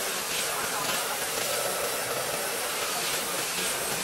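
Handheld electric sander running steadily while being worked over the face of a large wooden slab, giving an even motor whine and abrasive hiss.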